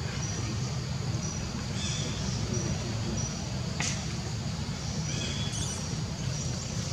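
Outdoor ambience: a steady low rumble under short, high chirps that repeat about every half second, with a single sharp click about four seconds in.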